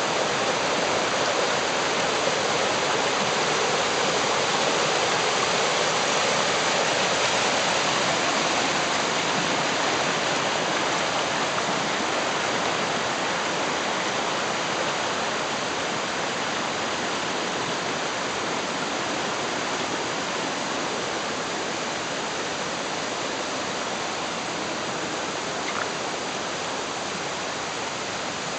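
Rain-swollen mountain stream rushing over boulders in white-water cascades, a steady, continuous rush after a night of rain. It grows slightly fainter toward the end.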